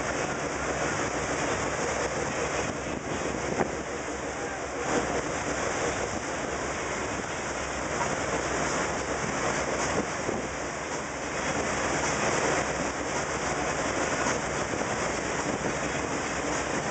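Steady rushing of churning white water in a motorboat's wake, with the boat running at speed, and a few brief louder splashes or buffets.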